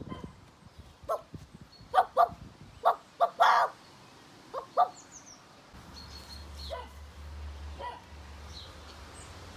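A dog barking: a string of short, sharp barks in the first half, then a steady low hum in the second half.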